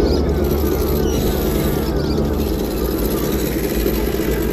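Electric motors and gear drivetrains of scale RC crawler trucks running with a steady hum as they creep over a log. Short falling chirps repeat about three times a second behind it.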